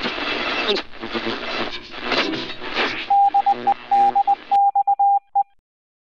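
Shortwave radio static and crackle as if a receiver were tuned across a band, then a single Morse-code-like tone keyed on and off in short and long pulses for about two seconds, stopping about five and a half seconds in.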